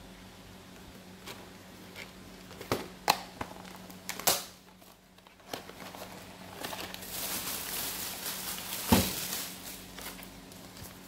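Cardboard oat box being handled and opened: a string of sharp clicks and snaps from the flaps, then the rustle of paper sachets being handled inside the box, with a single knock about nine seconds in.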